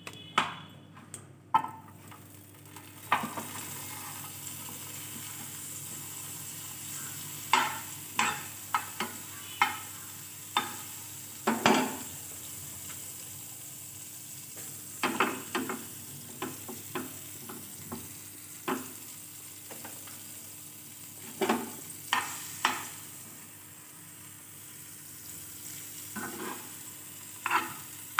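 Butter sizzling in a frying pan, a steady hiss that sets in a few seconds in, with a metal spoon clinking and scraping against the pan again and again.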